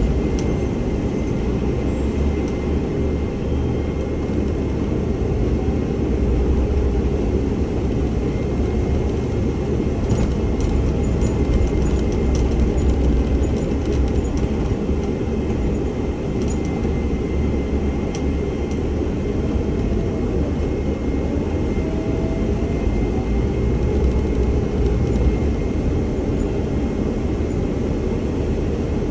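Cab running noise of a Scania OmniLink city bus driving along: a steady low engine and drivetrain hum with tyre noise on a wet road, and a faint steady high whine.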